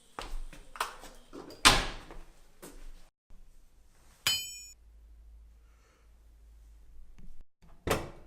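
A series of knocks and thuds, the loudest a little under two seconds in, then a sharp metallic clink with a brief ring about four seconds in, and another thud near the end.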